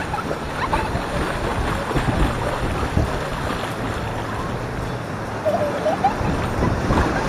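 Surf breaking and washing up over a flat sandy beach: a steady rush of foaming water.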